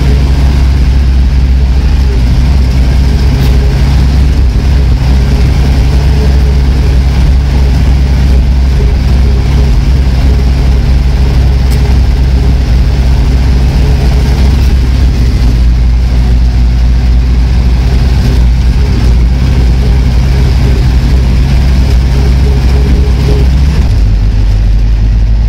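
Vehicle engine running steadily, heard from inside the cab while driving slowly along a rough dirt field track; the engine note changes shortly before the end.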